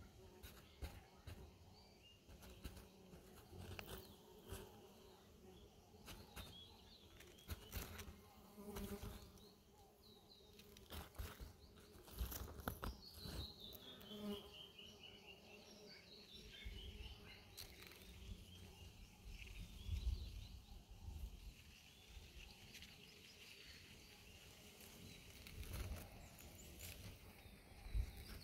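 A bee buzzing faintly inside a squash flower, a low steady hum. A bird calls with a falling series of chirps about halfway through and again near the end.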